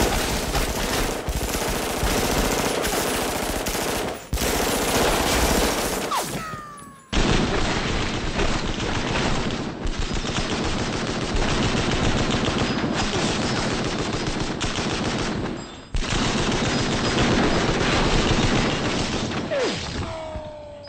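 Sustained rapid automatic gunfire from submachine guns, loud and nearly continuous, with brief breaks about 4, 7 and 16 seconds in.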